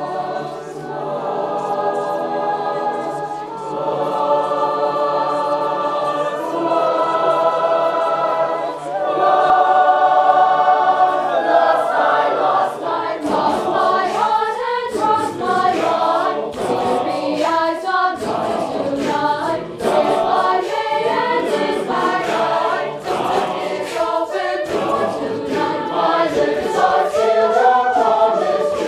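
Large mixed choir of teenage voices singing. It holds full chords that change every couple of seconds, then about twelve seconds in moves into a faster, rhythmic passage marked by sharp percussive beats.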